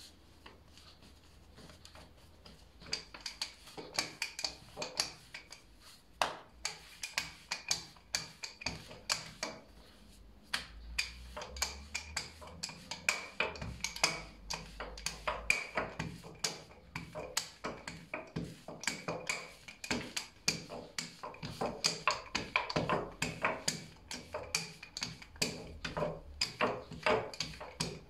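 Wooden rolling pin rolling out dough on a floured granite countertop, knocking against the stone in quick, irregular taps that start about three seconds in, with a faint steady high whine underneath.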